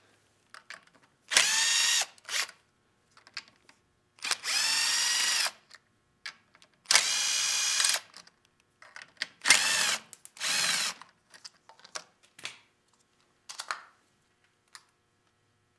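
Cordless drill with a socket bit backing out the bolts of a small engine's recoil starter cover: about five short bursts, each spinning up to a steady whine. Small clicks of bolts and parts being handled come between the bursts.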